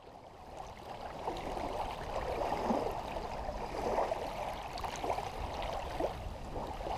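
Small waves lapping and splashing against a pebble shore in a steady irregular wash, fading in over the first second or so.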